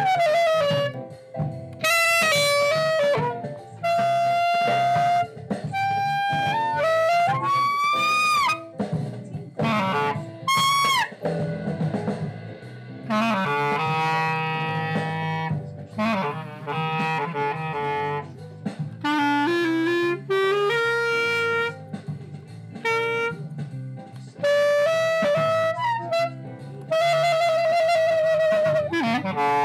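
Glory GLY-PBK Bb clarinet played through a Belmonte hard-rubber mouthpiece: a string of phrases of held notes broken by short breaths, with upward pitch slides about eight and ten seconds in and a wavering vibrato on a long held note near the end.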